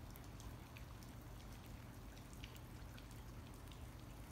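Faint, irregular patter of rain and meltwater drips on slushy, icy ground, over a steady low hum.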